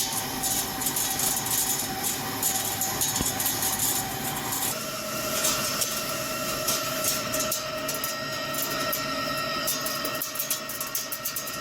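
Hankook PROTEC-9NC CNC lathe turning a steel forging: a steady whine from the machine with crackling of chips breaking off the cut. About five seconds in the whine steps down to a lower pitch and carries on.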